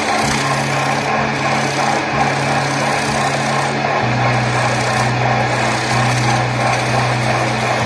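Wood lathe spinning a large wooden disc while a hand-held turning tool cuts into it: a steady, continuous rasping scrape of steel shaving wood.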